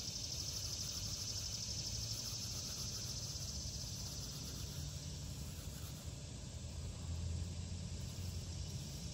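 Outdoor ambience: a steady high insect drone that fades after about six seconds, over a continuous low rumble.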